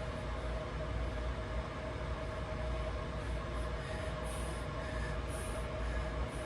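Fast breathing recorded close up, heard mostly as a low rumble, over the steady hum of a fan and a heater.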